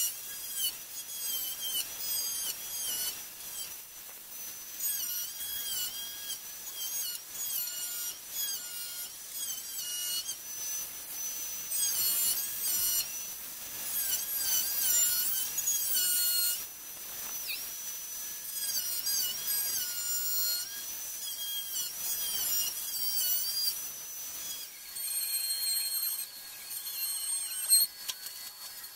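Angle grinder with a cutting disc whining at high pitch as it cuts through a fibreglass car valence. The pitch dips each time the disc bites into the material and recovers between short passes.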